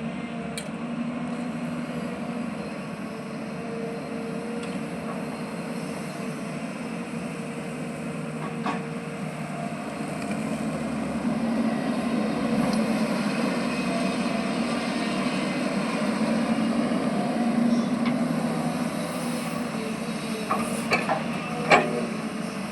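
Diesel engine of an earthmoving machine, a backhoe loader or an excavator, running steadily and growing a little louder in the middle. A few sharp metallic knocks come once near the middle and several times near the end.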